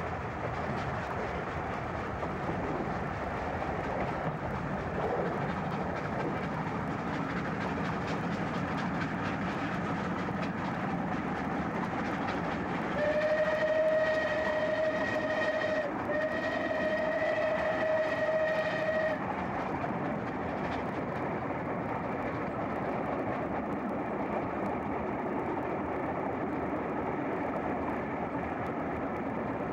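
Bulleid West Country class steam locomotive running at speed with its train: a steady rushing noise of the engine and coaches on the rails. About thirteen seconds in, its whistle sounds two long blasts of about three seconds each, one straight after the other.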